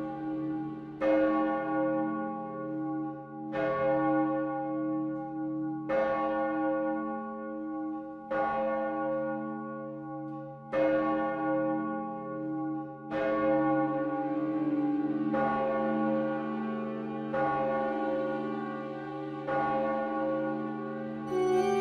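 A single church bell tolling slowly, about nine strokes a little over two seconds apart, each ringing on until the next: a mourning toll.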